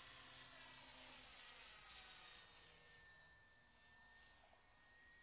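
Faint high-pitched whine of an Align T-Rex 600 RC helicopter flying high overhead, drifting slightly in pitch as it manoeuvres.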